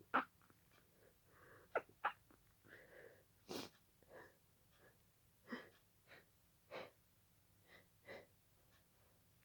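A person in a sneezing fit, sneezing over and over in quick succession, roughly one short sneeze a second, with quick breaths between; the sharpest sneeze comes about three and a half seconds in.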